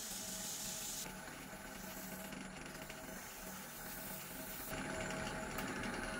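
Wood lathe running with a steady hum while sandpaper is held against the spinning silver maple pot, giving a soft, even hiss of abrasive rubbing on wood.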